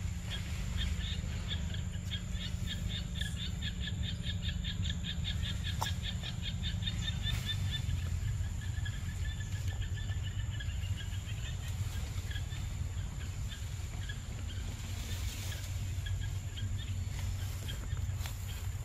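Forest ambience: a rapid run of short repeated calls, about five notes a second, that fades out about seven seconds in. Under it run a steady high insect drone and a constant low rumble.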